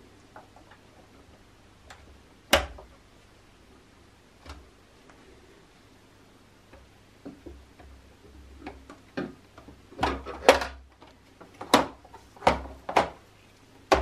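Hard plastic clicks and knocks from the black plastic side panel and housing of a De'Longhi ECAM coffee machine being fitted and snapped into place. There is a single sharp click about two and a half seconds in, then a quick run of six or seven clicks and knocks in the last five seconds.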